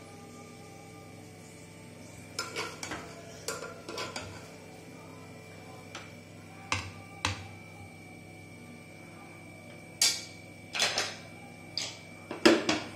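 A utensil clinks and scrapes against the cooking pan and a serving plate as cooked chicken pieces are lifted out and plated. It makes a dozen or so separate clanks with short ringing, in small clusters, the loudest near the end.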